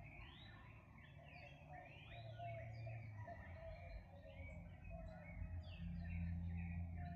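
Several birds singing at once in a morning chorus, many overlapping chirps that glide up and down. A low steady hum runs underneath and grows louder about five and a half seconds in.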